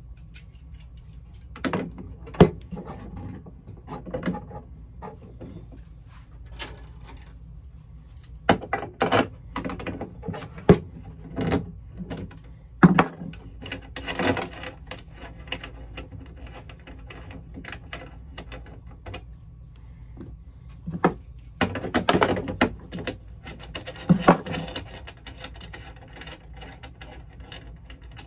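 Intermittent clicks, knocks and rattles of metal hand tools and paper-cutter parts being handled on a workbench, with bunches of sharper knocks about 2 seconds in, from about 8 to 14 seconds and around 21 to 24 seconds, over a steady low hum.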